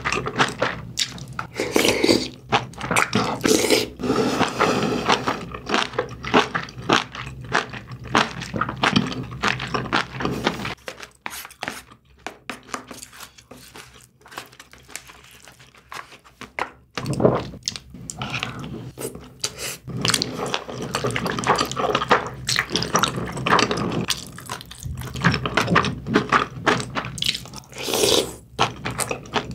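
Close-miked eating sounds: wet chewing, slurping and mouth smacks as braised kimchi and pork belly are eaten from a wooden spoon. The run of sounds thins out for several seconds in the middle, then picks up again.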